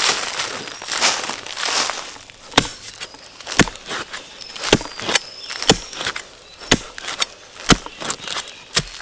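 Crunching and crackling of dry plant litter, then a steady series of sharp knocks about once a second.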